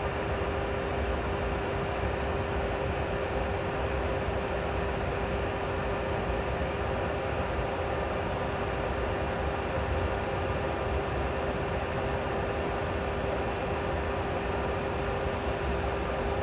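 Steady cockpit noise of a Boeing 737 Classic full flight simulator during a taxi: a constant hum with a single steady tone over a low rumble, like jet engines at idle.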